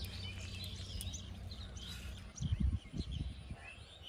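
Small birds chirping repeatedly in the background of an open pond bank, with a low steady rumble in the first half. A few loud low muffled bumps come about two and a half seconds in.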